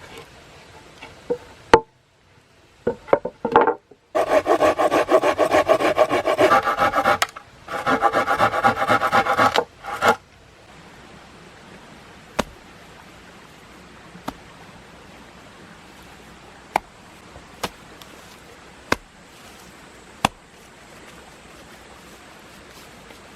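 A hand tool rasping on wood in two runs of quick strokes, each about three seconds long, with scattered single sharp clicks after them.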